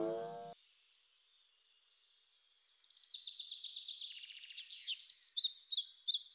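A pitched tone, rising slightly in pitch, cuts off about half a second in. After a short silence, birds start chirping, a quick run of high chirps that grows louder.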